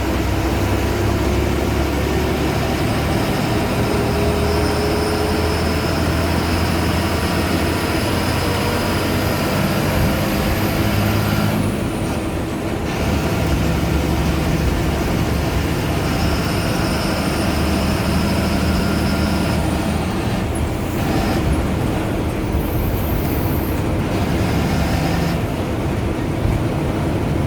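Ashok Leyland BS4 diesel bus engine running, with a thin high turbo whistle that climbs in pitch for about ten seconds, drops away suddenly, then climbs again and falls off once more near the end.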